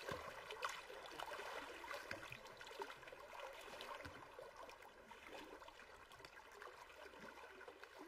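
Faint trickling, lapping water made up of many small crackles, easing down over the last few seconds.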